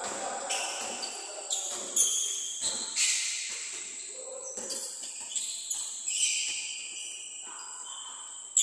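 Indoor basketball play: sneakers squeaking on the gym floor and the ball bouncing, with a loud sharp bang near the end.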